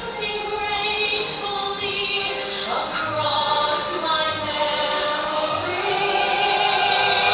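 Viennese waltz music with a woman singing long held notes.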